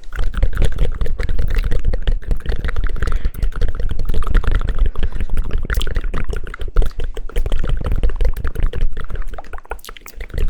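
Very fast, continuous hand claps and pats close on the microphone, a dense crackling patter with a heavy bass thud in each hit.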